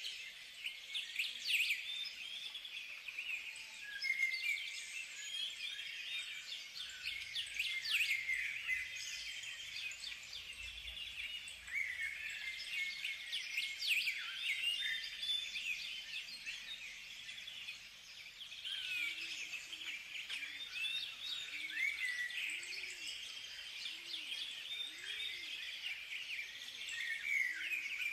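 Many small birds chirping and singing together in a dense, steady chorus of high chirps, with a lower note repeating about once a second in the second half.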